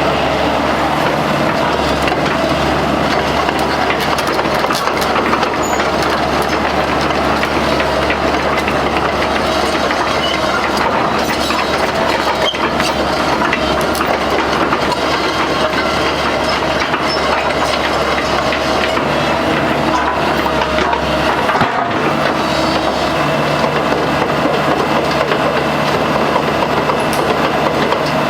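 Komatsu PC128US-1 hydraulic excavator running, its diesel engine droning steadily under the clatter of the working machine, with scattered clanks and knocks. The engine drone dips briefly about three-quarters of the way through.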